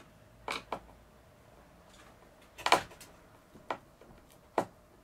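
A few separate sharp knocks and clicks from hands working at the van's window frame, the loudest about two and a half seconds in.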